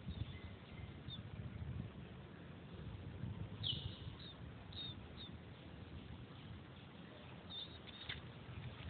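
Several short, high chirps, each falling in pitch, from a small animal, over a low rumble. A few light rustles come near the end.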